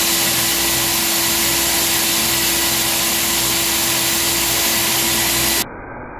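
Electric core drill on its stand running steadily with a whine, its diamond core bit boring into a concrete wall. About five and a half seconds in, the sound drops abruptly to a much quieter, duller hum.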